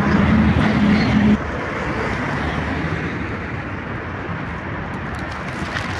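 Road traffic noise from passing vehicles. A low engine hum is loudest for the first second or so and cuts off suddenly, leaving a steadier, quieter traffic hiss.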